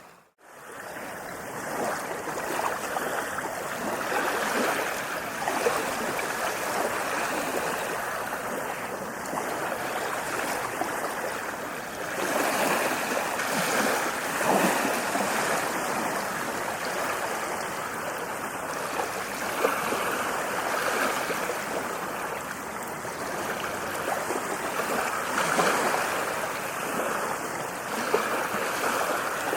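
Ocean surf washing onto a beach: a continuous rush of breaking and receding waves that swells and eases every several seconds. It drops out briefly at the very start.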